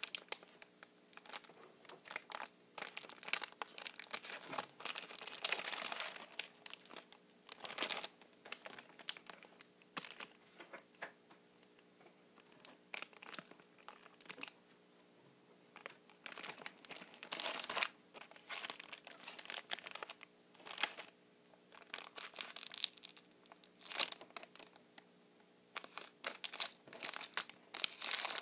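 Plastic wrapping of squishy toys crinkling and tearing as it is handled and opened, in irregular bursts with short pauses.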